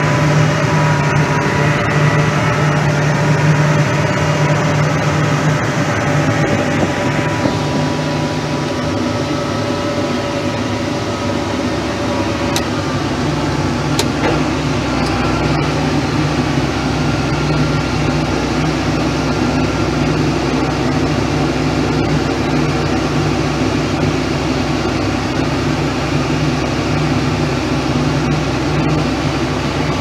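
John Deere 8210 tractor's six-cylinder diesel engine running steadily under load, heard from inside the cab while packing a corn silage pile. The hum shifts in tone a few seconds in, and a deeper rumble builds about midway.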